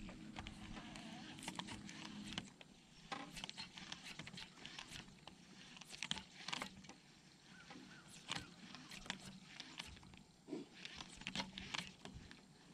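Faint, irregular clicks and rustles of hands handling a baitcasting rod and reel. A low steady hum stops about two seconds in.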